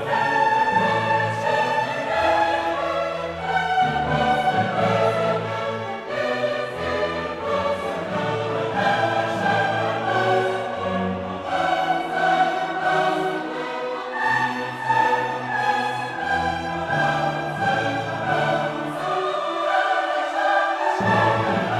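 Background music: orchestral music with a choir singing in long held notes.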